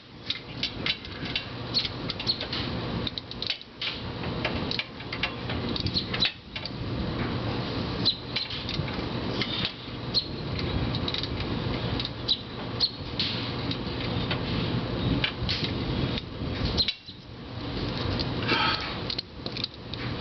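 Irregular clicks, clinks and rustling of a socket wrench and extension being handled and fitted at the oil-pan drain plug, over a steady low hum.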